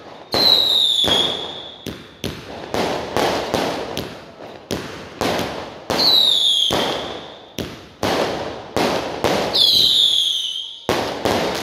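Multi-shot consumer fireworks cake firing a rapid string of sharp bangs and cracks as shells launch and burst overhead. Three times a whistling tone dips slightly in pitch and then holds.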